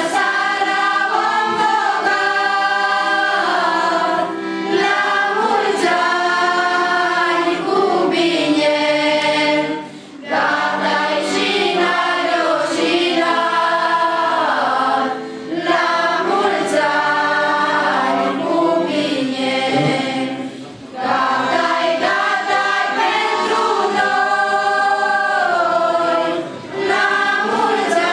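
A mixed group of women's, girls' and men's voices singing a Romanian Christmas carol (colind) unaccompanied, in sung lines separated by brief pauses for breath.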